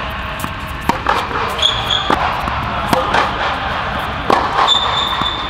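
Tennis rally on a hard court: sharp, separate knocks of a Head Boom MP racket and an opponent's racket striking the ball, and the ball bouncing on the court. There are two short high squeaks, about a second and a half in and again near the end, in a large echoing hall.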